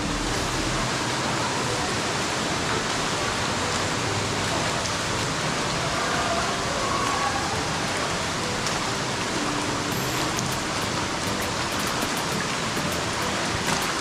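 Steady, even rush of falling water, like a waterfall or heavy rain, with no breaks or changes.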